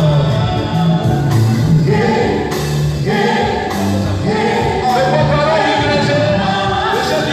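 A group of voices singing a hymn together, with long held notes.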